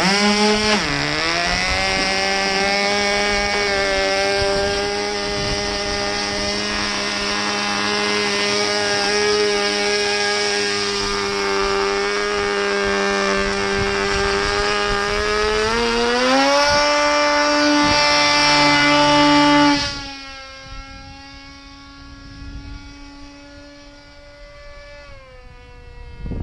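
Small RC model airplane's motor running at high speed with a steady buzzing whine. Its pitch rises about sixteen seconds in, and about twenty seconds in it becomes abruptly much quieter while still running, sinking in pitch near the end.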